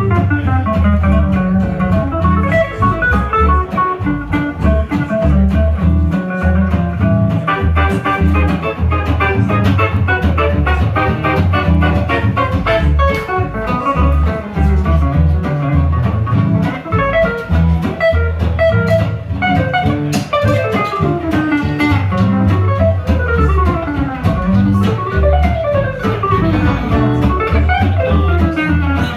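Live swing jazz band playing an up-tempo tune, with an acoustic guitar taking fast lead runs over a steady bass pulse. Near the end the lead line sweeps up and down in pitch.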